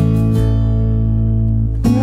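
Background music with guitar, chords changing over a steady low bass.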